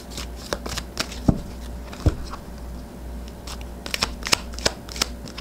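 A tarot deck being shuffled and cut by hand: a run of irregular soft card clicks and flicks, with a couple of louder snaps about one and two seconds in and a quick cluster near the four-second mark.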